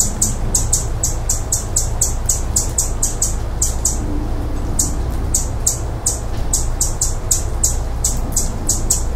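Hummingbird chipping: short, high, dry chip notes repeating about three or four a second, with a brief pause about four seconds in. A low steady hum runs underneath.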